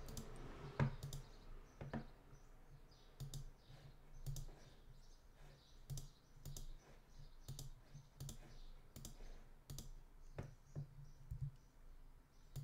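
Faint, irregular clicking of a computer mouse and keyboard, a few clicks a second at times.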